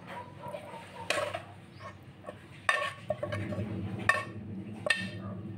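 Four sharp clinks of hard objects, each with a short ring, spaced irregularly over a few seconds above a steady low hum.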